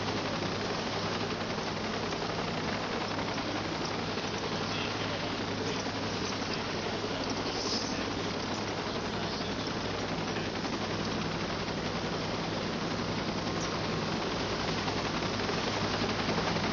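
Helicopter rotor and engine noise, steady and unbroken.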